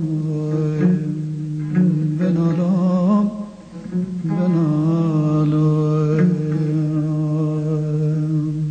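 Folk music: a plucked string instrument playing over a steady low drone, with long wavering held notes; the music dips briefly about three and a half seconds in.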